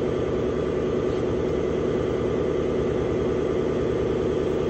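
Air jack running steadily with a fast, even chatter as it lifts a combine harvester's drive wheel toward clearing the floor.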